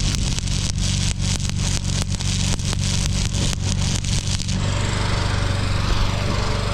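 Stick-welding arc crackling and spitting over a steady low hum. About four and a half seconds in, the sharp crackle gives way to a smoother hiss.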